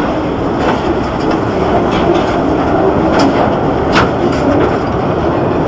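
Calico Mine Ride train rolling along its track, a steady rumble with a few sharp clicks from the wheels on the rails.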